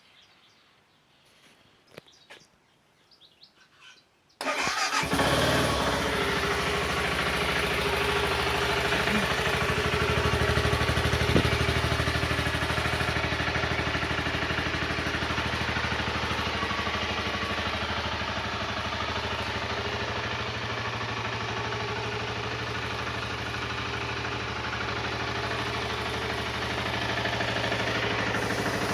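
A few faint clicks, then about four seconds in a BMW G650GS Sertão's single-cylinder engine starts and settles into a steady idle through its stock muffler.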